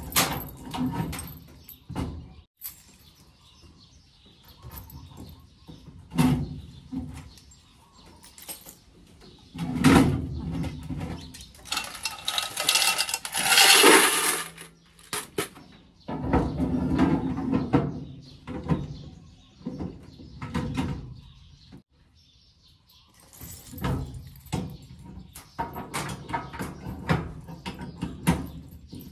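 Coins tipped out of a coin-operated washing machine's coin box into a plastic bucket: a jangling rush, loudest about halfway through. Around it, a key in the lock clicks and the coin box clatters as it is pulled out and pushed back in.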